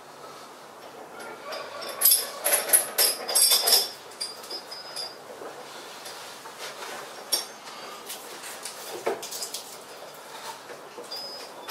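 Hanging steel chains clinking and rattling as they are handled, with a burst of loud metallic clinks about two seconds in and lighter rattles after.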